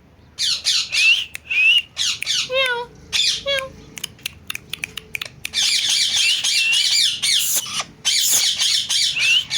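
Pet parrot squawking and chattering in harsh bursts, with a falling stepped whistle about two and a half seconds in, a run of quick clicks a little later, and near-continuous squawking through the second half.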